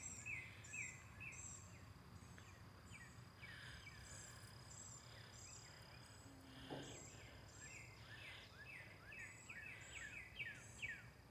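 Birds singing faintly: many short, repeated, downward-sliding chirps and whistles, over a steady high-pitched insect drone.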